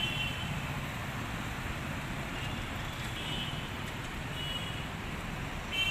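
Road traffic: a steady noise of passing cars and motorbikes, with a few short high-pitched tones over it.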